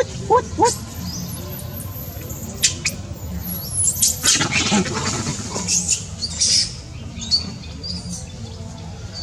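Pet monkey giving short high squeaks and chirps, some bending up and down in pitch, with a brief stretch of scuffling about four seconds in.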